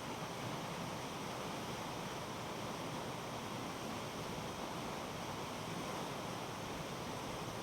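Steady rush of flowing water, an even hiss-like roar with no breaks or distinct events.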